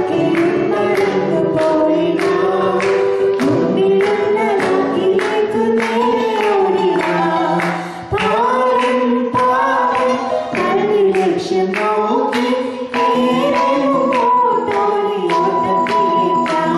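A woman and a man singing a Malayalam song together into microphones, over a steady percussive beat of about two strikes a second, with a brief break about halfway through.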